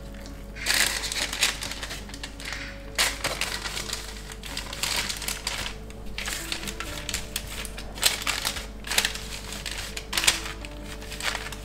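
Baking parchment crinkling and rustling in several short bursts as hands fold and press the dough edge of an apple galette, over soft background music.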